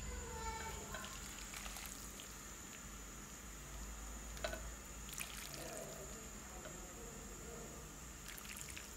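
Beef broth ladled from a wok over a bowl of noodles, the liquid faintly pouring and trickling, with a few sharp clinks of the ladle or chopsticks against the bowl about halfway through.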